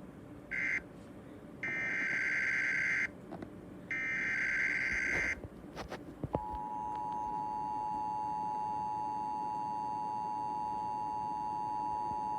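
Emergency Alert System tones for a severe thunderstorm warning. Three screechy digital data bursts of the SAME header come first, then the two-tone attention signal starts about six seconds in and holds steady.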